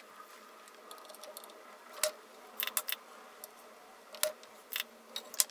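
Desoldering pump and soldering iron at work on a double-sided circuit board, clearing solder from the empty capacitor holes: a scattering of sharp plastic clicks and snaps, a few in quick bunches, the loudest near the end.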